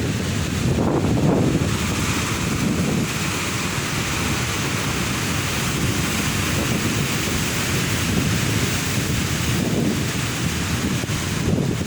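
Ocean surf breaking continuously, swelling about a second in and again near the end, with wind rumbling on the microphone.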